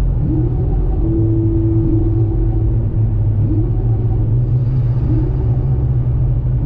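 A car on the move: a steady low rumble of engine and road noise.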